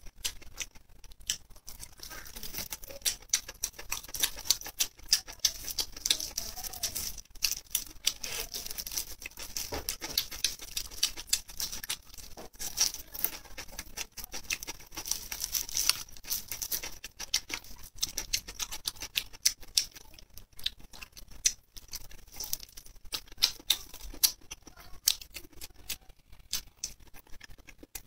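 Close-miked chewing of chili-oil-coated skewered food such as enoki mushrooms: a steady run of rapid small wet clicks and smacks from the mouth.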